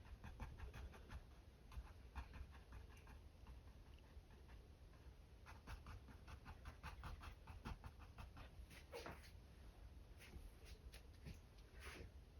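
Faint dabbing of a mop brush tapped and twisted against a stretched canvas with acrylic paint, in irregular runs of soft taps.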